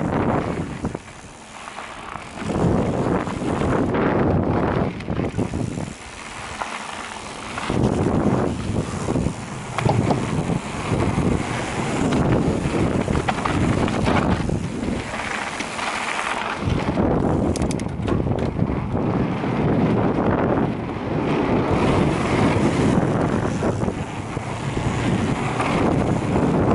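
Wind buffeting the microphone of a mountain bike's on-board camera at speed, mixed with the rumble of tyres rolling over a dirt trail. The wind noise drops away briefly three times.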